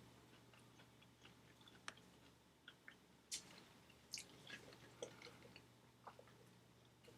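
Quiet chewing of fast food, with scattered small clicks and smacks of the mouth; one is a little louder just after three seconds in. A faint low hum runs underneath.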